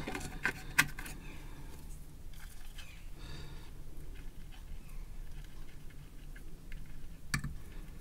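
Light handling noise as a length of copper solder wick is picked up and placed on a circuit board: a few small clicks near the start, faint rustling, and one sharper click near the end.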